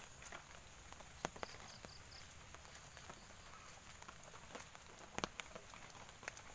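Light rain: a faint steady patter with scattered sharp drops tapping at irregular intervals. About a second and a half in, four short high chirps follow one another quickly.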